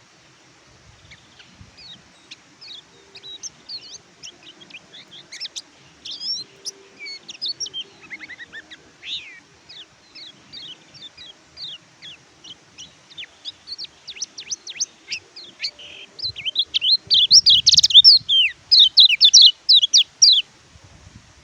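Kecial kuning white-eye (pleci) singing: a fast, chattering run of short high chirps and trills that grows louder, reaches its loudest burst near the end, then breaks off.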